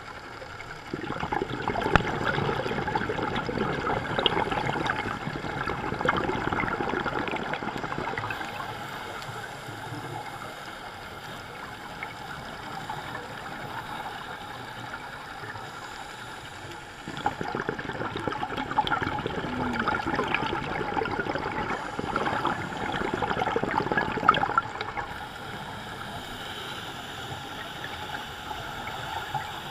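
Scuba diver's exhaled bubbles from the regulator gurgling and rushing, heard underwater, in two long loud spells with quieter stretches between.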